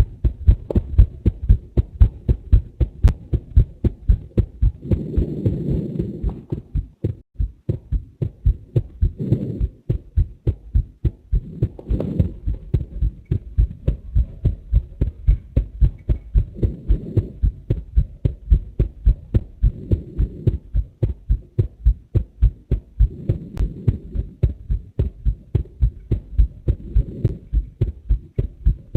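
A human heartbeat heard close up: a steady, fast run of low thumps, with a soft rushing sound swelling briefly every few seconds.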